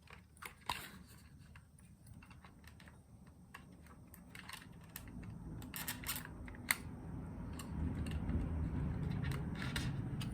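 Small clicks and scrapes of a tool levering the plastic body shell off a model locomotive's chassis, with a low rumble building from about halfway in.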